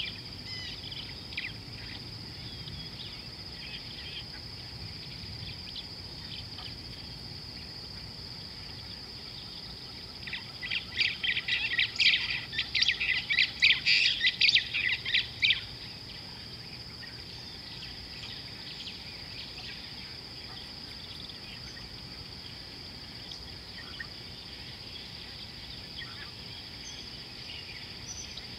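Wild birds calling: a loud, rapid series of chattering calls for about five seconds near the middle, with scattered faint chirps elsewhere, over a steady high insect drone.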